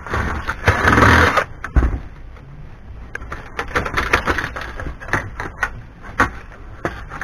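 A scrap DVD player being taken apart by hand: a loud rattle of its sheet-metal case at the start, then a run of light metallic clanks and clicks as the power-supply board and metal parts are handled.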